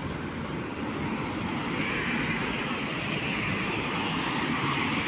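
Street traffic noise: a steady hiss of tyres and engines, swelling as a car passes close by in the middle.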